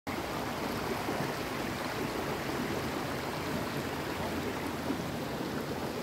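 River water flowing: a steady, even rushing.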